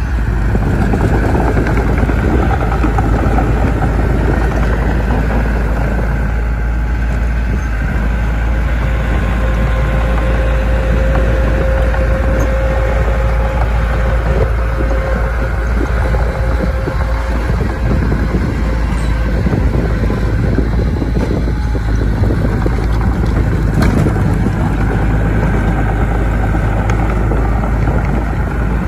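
Heavy diesel earthmoving machinery running steadily, with a low drone and a faint whine in the middle.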